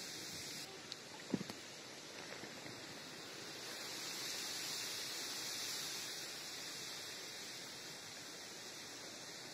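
Steady faint hiss that swells a little midway, with a couple of small clicks about a second in.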